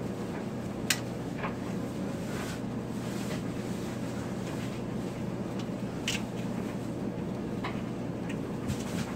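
Steady hum and rush of a top-loading washing machine heard from inside its drum, with a few sharp clicks and knocks, the loudest about a second in, as a hand rummages through the wet cloth diapers.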